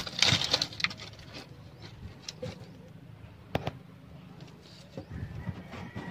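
Dry straw burning, with scattered sharp crackles and pops. A short burst of rustling comes right at the start.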